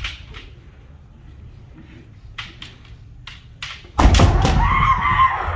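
Kendo bout: sharp clacks of bamboo shinai and foot-stamps on the floor, then about four seconds in a loud thud with a long held shout, a kiai.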